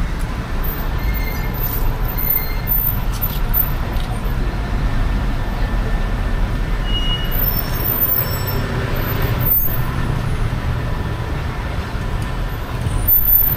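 Road traffic noise: a steady low rumble of passing vehicles and engines.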